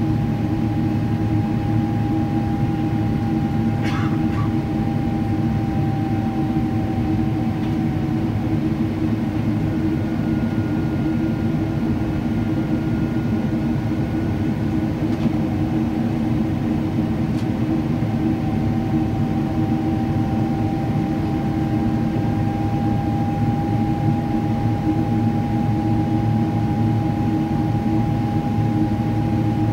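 Cabin noise of a Boeing 777-300ER in its climb after takeoff: the steady drone of its GE90 turbofan engines, with a high whine that sinks slightly about seven seconds in and climbs back over the second half. A brief click sounds about four seconds in.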